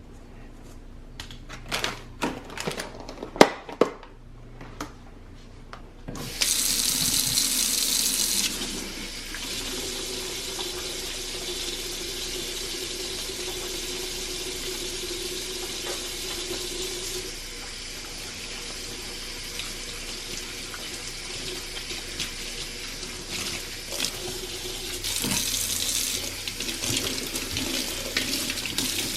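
A few sharp knocks and clicks, then a faucet is turned on about six seconds in and water runs into a sink. It gushes hardest for the first couple of seconds, then keeps running steadily, a little louder again near the end.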